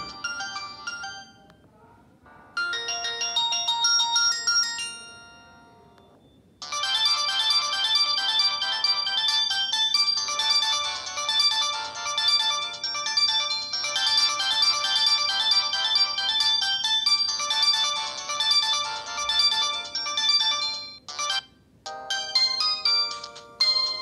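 Built-in ringtones of a Samsung GT-E2120 mobile phone, previewed one after another through its small speaker: the end of one electronic tune, a short melody about two and a half seconds in, a long melody from about six and a half seconds to about twenty-one, and another tune starting near the end.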